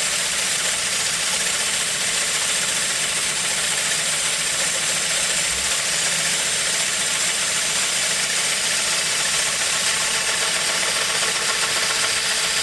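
Wood lathe running as a parting tool cuts into a spinning wooden stave drum shell, the cut nearly through the wall. A loud, steady hiss of cutting over the running machine, unchanging throughout.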